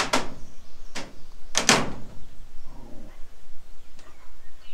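Stone arrowheads knocking and clacking on a hard surface as they are handled: a few sharp knocks, the loudest a quick double knock about a second and a half in.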